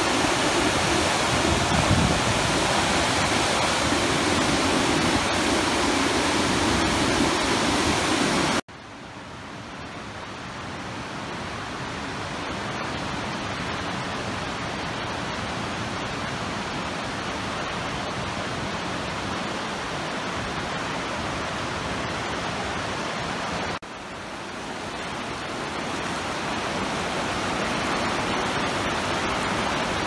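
Fast-flowing river rushing over rapids: a steady water noise. It drops suddenly about nine seconds in and again near the end, each time slowly building back up.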